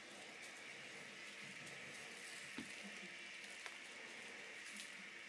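Quiet room tone: a faint steady hiss with three soft clicks, the first about halfway through and the last near the end.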